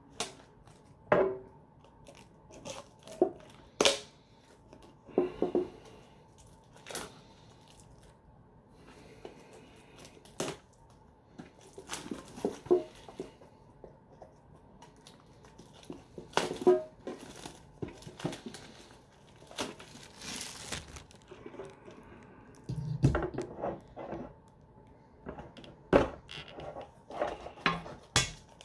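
Foil booster packs from Yu-Gi-Oh! 2020 Mega Tins crinkling and tearing as they are handled and opened, with irregular sharp clicks and taps and a duller thump a little after the middle.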